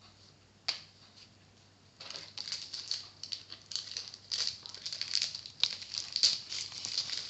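A single click, then from about two seconds in a continuous crinkling of a trading-card pack's plastic wrapper being handled and worked open.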